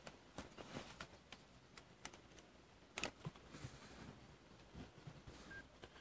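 Near silence: faint background ambience with a few soft scattered clicks, the loudest about three seconds in.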